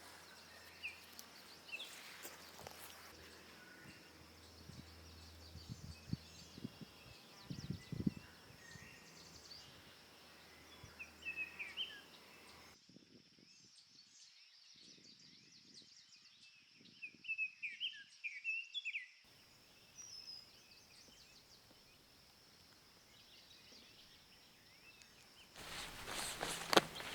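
Quiet forest ambience: scattered bird chirps over a steady high-pitched hum, with a few soft knocks. The background changes abruptly a couple of times.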